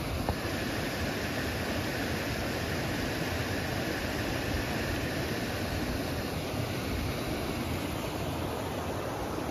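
A small mountain stream rushing steadily over stones.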